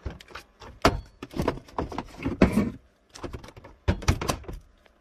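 Light-blue Frigidaire mini fridge being opened and shut by hand: a string of knocks and clunks from its door and handle, the loudest about two and a half seconds in.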